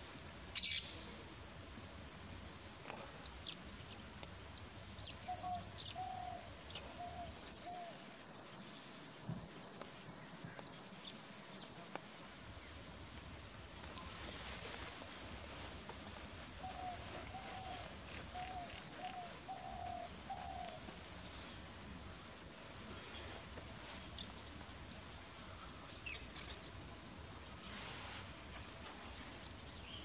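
Wetland birds calling over a steady high hiss. Flurries of quick high chirps come a few seconds in and again near the middle. Two runs of short low notes follow, a brief one a few seconds in and a longer one past the halfway mark.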